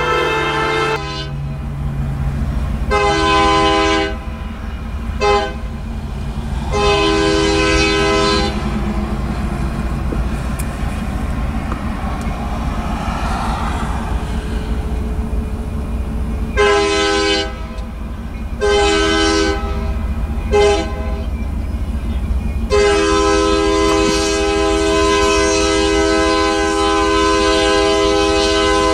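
Diesel freight locomotive's air horn sounding the grade-crossing signal of long, long, short, long blasts, given twice, each blast a chord of several notes. A steady low rumble of the approaching train runs underneath.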